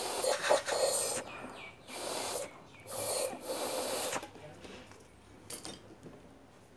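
Air blown through the water passage of a Silver Star iron to clear scale deposits: four hissing bursts over about four seconds, then a single light click.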